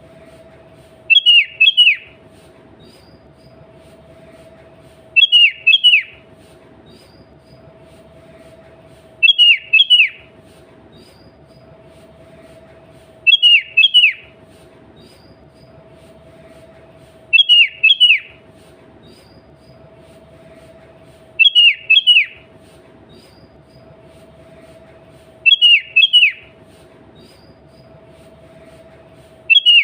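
Sooty-headed bulbul (kutilang) song: a short phrase of a few sharp, clear notes, repeated the same way about every four seconds. A steady low hum and hiss runs between the phrases.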